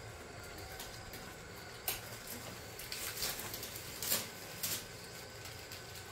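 Several short crinkles and rustles of plastic bags being handled, about four separate ones a second or so apart, over a faint steady background.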